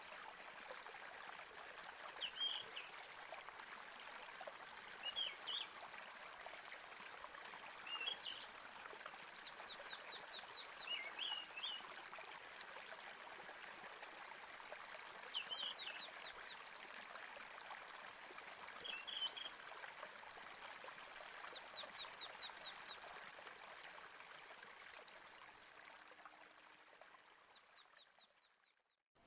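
Faint steady sound of running water with birds chirping over it: short chirps every two or three seconds and, now and then, a quick rattling trill of rapid descending notes. The whole fades out just before the end.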